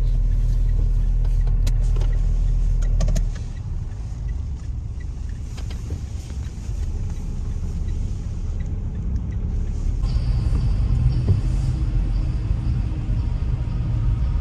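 Cabin noise of a sound-insulated Mitsubishi Pajero Sport 2 pulling away and driving slowly: a steady low engine and road rumble. A deep hum cuts off about three seconds in, and the rumble slowly grows louder after that.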